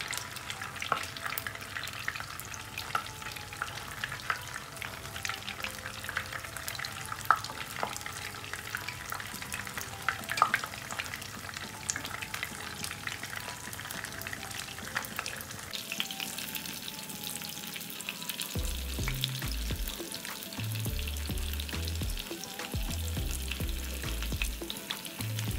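Batter-coated fish pieces frying in hot oil in a non-stick frying pan: a steady sizzle crackling with small pops as more pieces are dropped in by hand. Low bumping noises join in during the second half.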